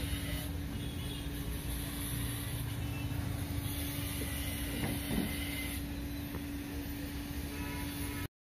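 A steady low hum over background noise, with a few faint knocks and clicks from a plastic car accelerator pedal assembly being handled and fitted. The sound cuts off abruptly near the end.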